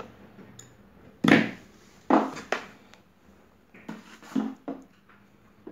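Handling noise: a handful of sharp knocks and clacks, the loudest about a second in, from hands working at a sandwich maker's hard plastic housing and its supply wires.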